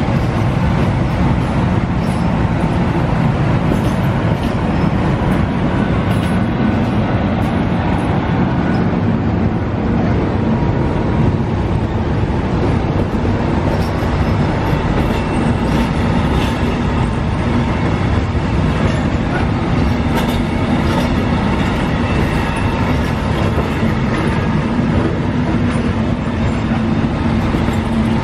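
Passenger train of InterCity coaches hauled by a MÁV class 431 (V43) electric locomotive rolling past at close range, a steady rumble with wheels clattering over the rail joints.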